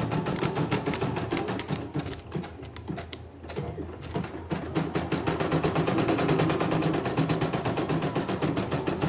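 CNY E900 computerised embroidery machine stitching a design at its slow speed setting: the needle runs with a rapid, even ticking that eases off briefly around three seconds in, then picks up again. It is a test stitch-out after repair.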